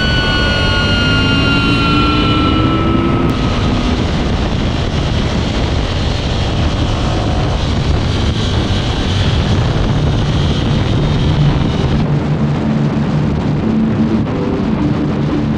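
Sport motorcycle engine running hard at speed on track, heard from an onboard camera with heavy wind rush over the microphone. A rock guitar track fades out in the first few seconds.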